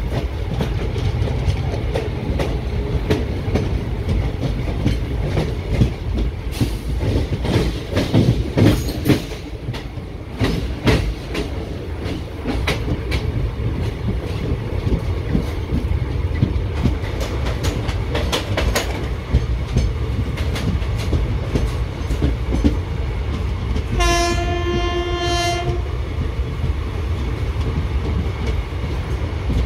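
Indian Railways ICF passenger coaches running at speed, their wheels rumbling and clicking over the rails, with a dense run of sharp clicks between about six and thirteen seconds in. Near the end the WCAM2 electric locomotive sounds one steady horn blast of about a second and a half.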